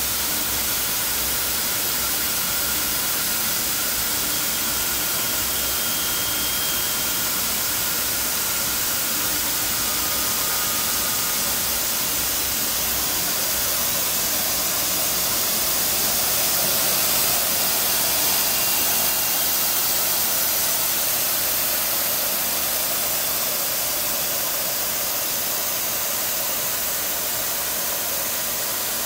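Steady, loud hiss of running BCF yarn production machinery, even and unbroken, with a faint thin whine coming and going.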